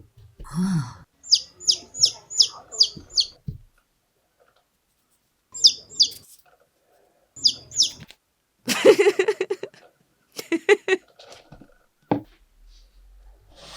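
Bird-like chirping: a quick run of six high, falling chirps, then two pairs of chirps, followed near the end by a short buzzy, voice-like sound.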